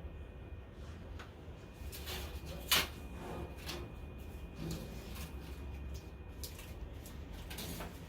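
Quiet handling noises: light scattered clicks and rustles over a low steady hum, with one sharper click just under three seconds in.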